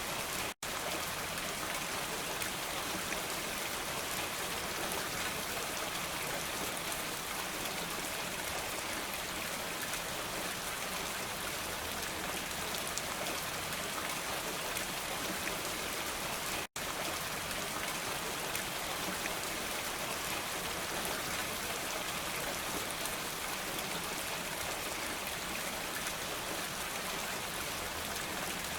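Steady rainfall, an even, dense hiss of drops, broken by two momentary dropouts, one just after the start and one about two-thirds of the way through.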